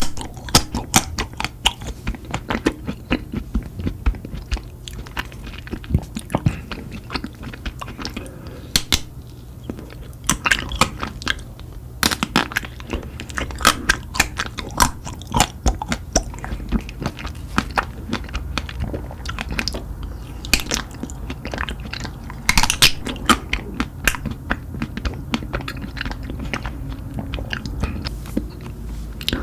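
Close-up eating sounds: crunchy bites and wet chewing, with a steady run of sharp crackles and clicks that repeat irregularly throughout.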